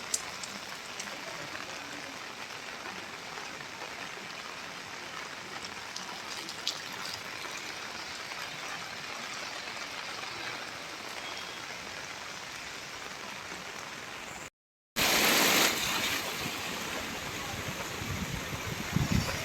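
Heavy rain falling: a steady hiss with scattered drop ticks. About two-thirds of the way through, the sound cuts out for half a second and comes back louder.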